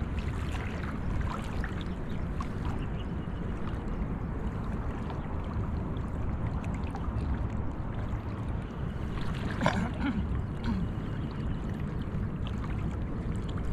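Shallow estuary water sloshing and swishing around legs as people wade slowly through it, over a steady low rumble.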